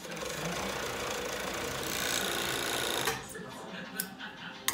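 Industrial overlock machine (serger) running steadily as it stitches a stretch-knit sweater seam, stopping suddenly about three seconds in. A few sharp scissor snips follow near the end, cutting the thread chain.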